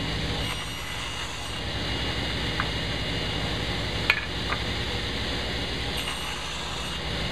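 Table saw running steadily with its motor hum, switched on just before, with a few light clicks and knocks from handling the stock.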